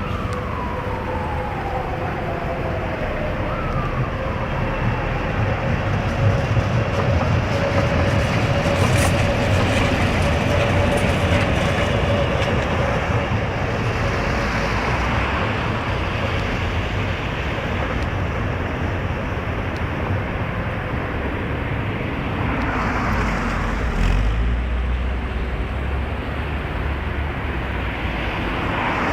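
Budapest UV tram running along the track, with a steady rumble and rattle of wheels on rails. A falling whine sounds twice in the first few seconds, and a steady thin tone runs through the first half before fading.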